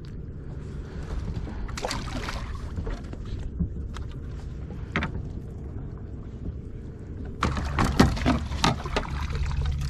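Water lapping and splashing against a kayak hull, with a few sharp clicks from fishing gear being handled. About seven seconds in it turns abruptly louder and splashier, with many small clicks and splashes.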